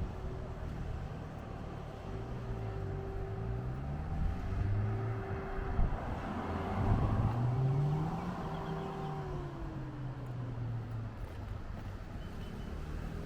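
A motor engine running, its pitch rising and falling as it revs, with a steady higher hum that drops in pitch about nine seconds in.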